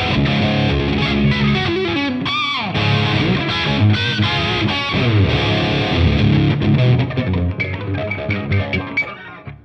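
Overdriven electric guitar played through a Surprise Sound Lab Flex15 single-ended tube amp running 6L6 output tubes, with wavering vibrato notes and a falling slide about two and a half seconds in. It fades out near the end.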